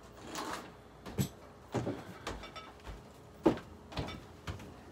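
A few short scattered knocks and rustles, the sharpest about three and a half seconds in.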